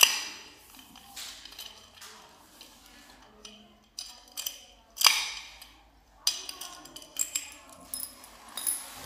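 Sharp metallic clicks and clinks of a metal padlock being handled. The loudest click comes right at the start and another about five seconds in, then a run of smaller clicks near the end.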